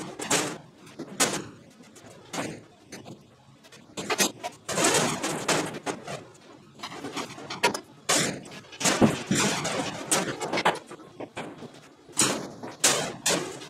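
A large steel sheet hanging from an overhead chain hoist being shifted and positioned by hand: irregular metallic knocks, scrapes and rattles, with the loudest bang about nine seconds in.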